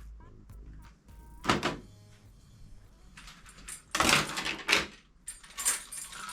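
Background music with a few sharp knocks and clacks, the loudest a cluster about four seconds in.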